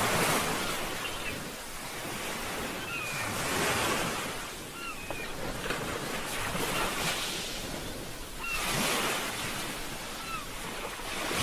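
Sea waves washing in and out, each surge swelling and fading every few seconds, with a few short high chirps over the top.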